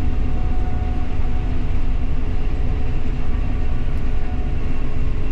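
Combine harvester running steadily while cutting soybeans: a deep, even rumble with a faint steady hum.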